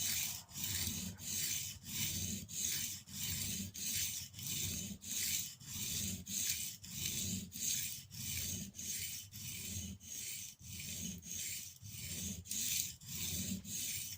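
Curved spokeshave blade honed on a water-soaked 600/400-grit sharpening stone, steel scraping back and forth over the stone. It makes an even, rhythmic hiss of quick strokes, a little under two a second.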